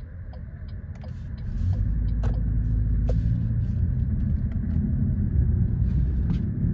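Low rumble inside the cabin of a Toyota Corolla Cross hybrid as it pulls away and speeds up. The road and drivetrain noise builds over the first second and a half, then holds steady, with a few faint clicks.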